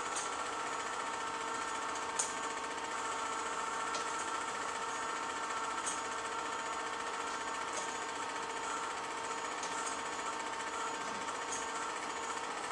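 Film projector running steadily: an even mechanical whir with a faint click about every two seconds.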